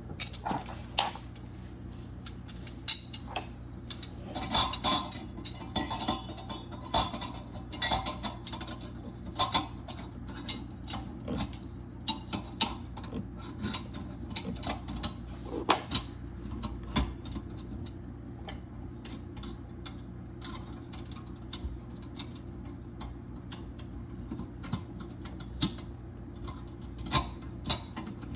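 Garbage disposal mounting hardware being handled and fitted onto the sink flange: irregular metallic clinks, taps and scrapes, over a steady low hum.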